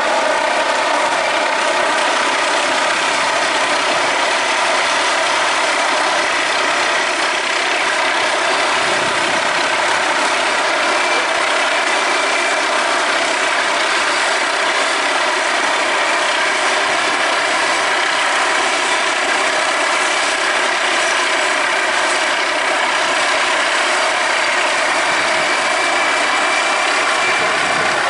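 Military helicopter hovering and flying low overhead: a steady rotor and turbine drone with a constant whine, unchanging in level throughout.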